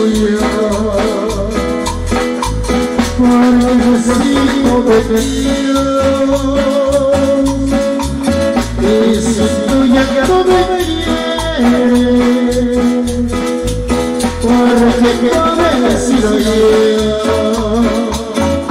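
Latin dance music played loud over a pulsing bass, with a held melody line shifting from note to note and a fast rattling shaker rhythm.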